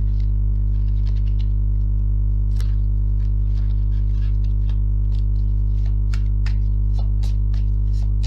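Steady electrical mains hum, with scattered light clicks and taps from tarot cards being handled and laid out.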